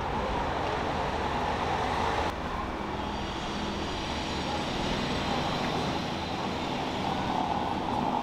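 Steady city-street traffic ambience: an even hum of traffic with no clear single event, shifting slightly about two seconds in.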